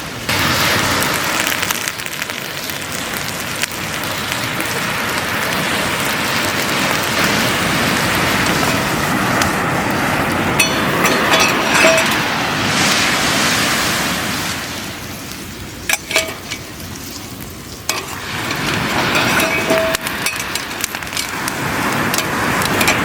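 Bacon and eggs sizzling in a pan over a wood campfire, a steady frying hiss, with a few brief clicks around the middle.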